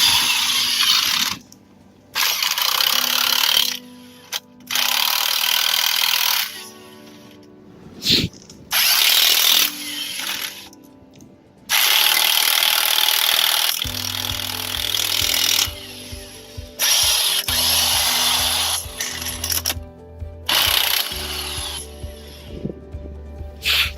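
Impact wrench running in a series of bursts, each lasting from about one to a few seconds, as it tightens wheel nuts. Background music plays underneath.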